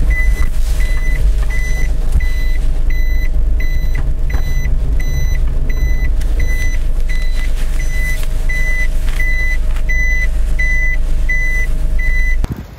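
Reverse-warning beeper of a kei camper van sounding about twice a second over the steady rumble of its engine as it backs up. Beeps and engine cut off together near the end.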